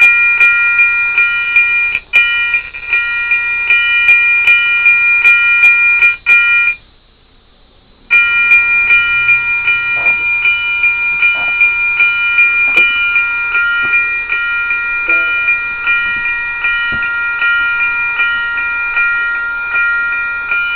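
Lionel FasTrack railroad crossing signal's bell sound ringing in quick repeated dings while a car is in its block. It cuts out for about a second around seven seconds in as the car leaves the block, then rings again as it comes back in.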